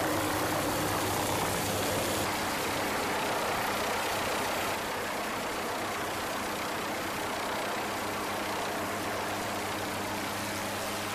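MQ-8 Fire Scout unmanned helicopter hovering: a steady turbine and rotor hum with a broad rushing hiss, a little quieter after about five seconds.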